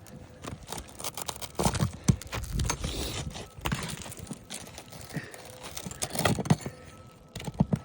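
Pry bar scraping, clicking and knocking irregularly against a roofing nail as it is worked out from under the shingles, with the shingle tearing and crinkling. The nail is very hard to extract.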